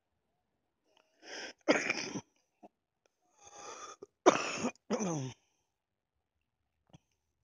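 A person coughing hard: a sharp breath in, then a harsh cough, another breath in, then two more coughs close together, the last one falling in pitch.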